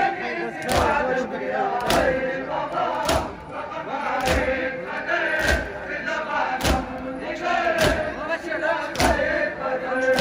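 Crowd of Shia mourners doing matam, striking their chests in unison in a steady beat a little more than a second apart, over a crowd chanting and calling out.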